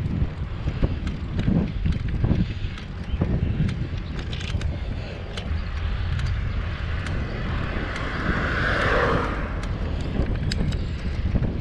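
Wind rumbling on the microphone of a bicycle on the move, with small clicks and rattles. A car passes close by about eight to nine seconds in, rising and fading away.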